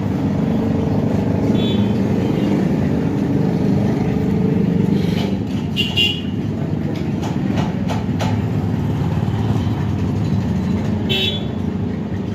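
Steady rumble of running vehicle engines, with three brief high-pitched toots about two, six and eleven seconds in and a few sharp clicks around the middle.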